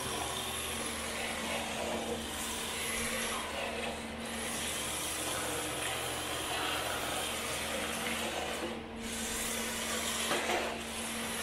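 MST rear-wheel-drive RC drift car sliding in continuous circles on a concrete floor, its tyres scrubbing with a steady rasp over the drivetrain's hum. The sound dips briefly twice.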